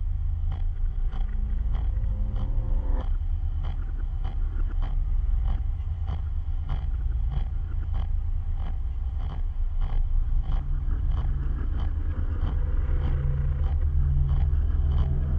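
A low, rumbling drone with a few steady low tones and regular short clicks about twice a second.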